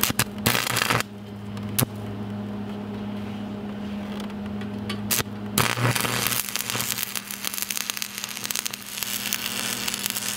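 Arc welding with a 7014 stick electrode on steel. The arc sputters and crackles in short bursts as it is struck in the first second, then from about halfway through burns continuously with a dense frying crackle as the bead is laid. A steady low hum runs underneath.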